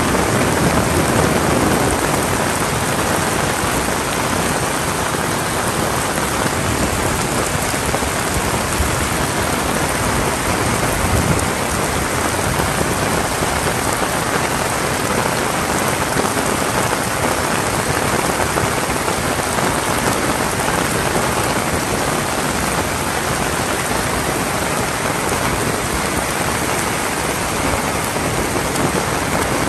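Heavy rain falling steadily: a dense, even hiss of drops on surfaces.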